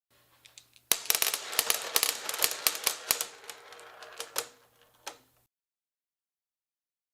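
A rapid, irregular run of sharp mechanical clicks and clacks lasting about three and a half seconds, thinning out near the end with one last click, over a faint low hum.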